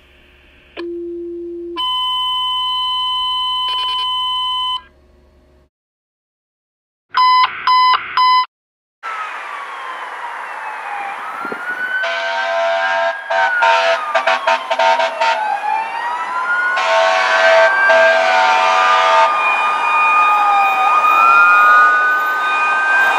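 Fire dispatch two-tone page: a low tone for about a second, then a higher tone held about three seconds, followed after a short pause by three quick alert beeps. Then a fire engine's siren wails up and down, with blasts of its air horn, as the engine approaches.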